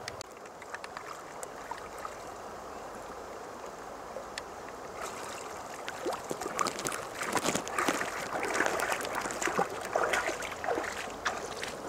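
Shallow river flowing steadily. From about five seconds in, water splashing and sloshing as feet wade through it, getting louder towards the end.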